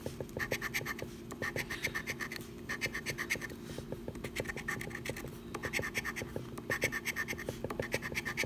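A large coin scraping the latex coating off a paper scratch-off lottery ticket in quick back-and-forth strokes, in several short runs with brief pauses between them.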